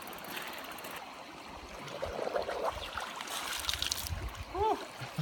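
Running stream water, with scattered knocks and clatter and a short, arching squeak or chirp near the end.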